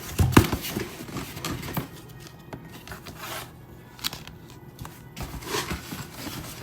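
Cardboard box being opened carefully by hand: scraping, rustling and tape tearing, with a few sharp knocks and clicks.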